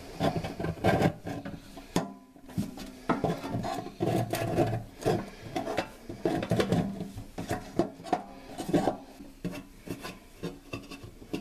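Metal scraper scraping old caulk and dried plumber's putty off the stainless steel rim of a sink drain opening in short, irregular strokes, with a brief pause about two seconds in. The rim is being cleaned down to bare metal to seat a new basket strainer.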